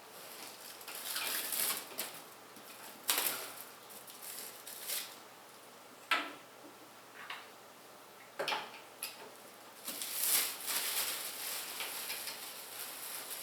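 Hands working on computer parts: scattered clicks and light knocks with short spells of scraping and rustling.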